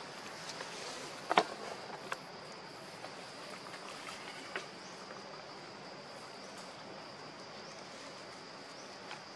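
Steady high-pitched chorus of insects, with a few short sharp clicks over it, the loudest about a second and a half in.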